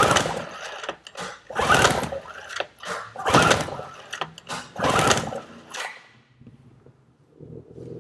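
An outboard motor's recoil pull-starter is yanked four times, about every second and a half, each pull whirring the engine over with the throttle locked wide open and a compression gauge fitted for a compression test.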